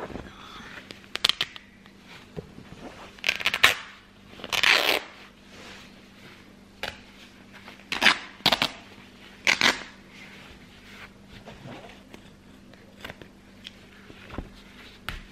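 Denim jeans hem torn by hand along a cut notch, in about five short ripping bursts with small crackles of tearing threads between them.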